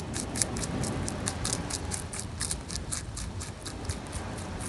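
European rabbit chewing green food right at the microphone: rapid, regular crunching chews, about five a second.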